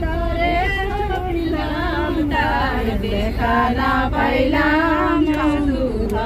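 A group of women singing a Bengali song together aboard a coach, several voices carrying one held, wavering melody, with the coach's low rumble underneath.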